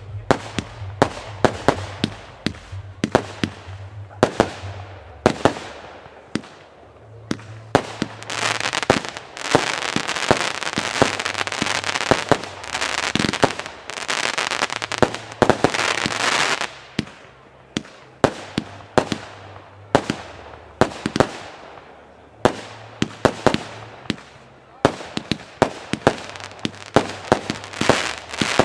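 A 192-shot Klasek firework compound cake firing: a rapid run of shots launching and bursting overhead, several a second. From about 8 to 17 seconds in, the shots merge into a dense, continuous crackling rush, then thin out again to separate bangs.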